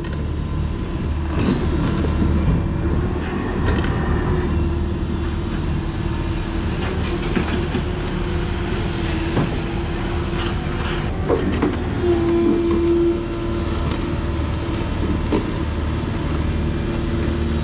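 Hyundai crawler excavator's diesel engine running steadily under load while digging and dumping soil, with a held whine that swells for about a second partway through and scattered knocks and scrapes of the bucket in stony dirt.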